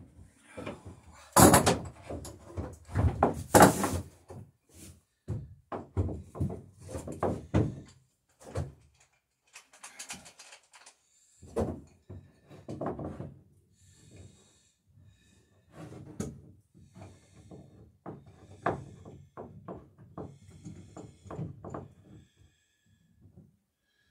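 Irregular knocks, clicks and clatter of clamps and tools handled against the wooden dory's rail, with the loudest thuds about one and a half and three and a half seconds in.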